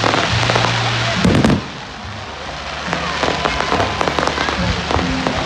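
Fireworks crackling and popping: a dense crackle in the first second and a half, then quieter, sparser crackles, with music playing underneath.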